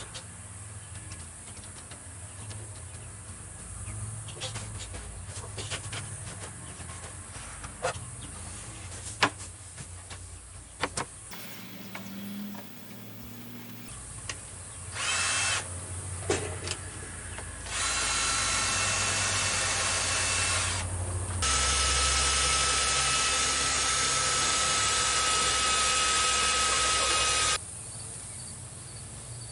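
Power drill running in several bursts with a steady whine, the longest about six seconds near the end, after a stretch of scattered knocks and clicks from handling materials.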